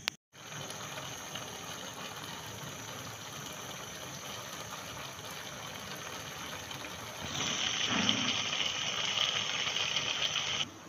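A pot of jollof rice and beans boiling on a gas burner, giving a steady hiss of bubbling and steam. It grows louder for the last few seconds and then cuts off abruptly.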